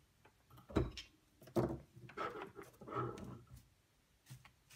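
Metal end cap and rotor of an old electric motor being worked loose and pulled out of the stator housing: two knocks, then scraping and rattling as the parts slide apart.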